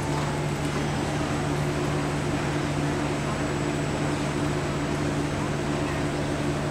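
Steady mechanical hum with a constant low droning tone.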